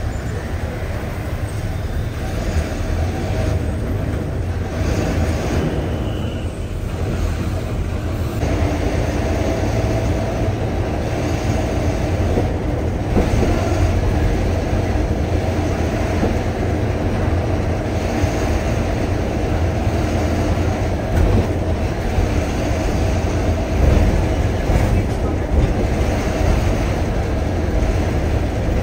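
Steady low rumble of a moving city bus, heard from inside the cabin: the diesel engine running with road and body noise.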